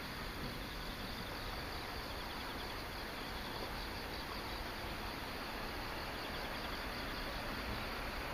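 Insects chirping in a steady chorus of fast, evenly repeated high pulses, over a constant background hiss.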